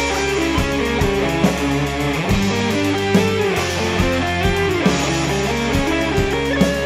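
Instrumental melodic rock/metal: an electric guitar lead playing sustained notes with bends, over bass and a steady drum beat.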